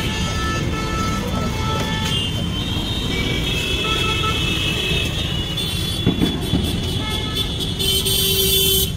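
Road traffic with a steady engine rumble and vehicle horns sounding again and again, one longer horn near the end.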